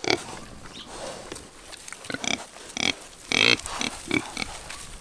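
Pigs grunting close up, a run of short separate grunts several times over.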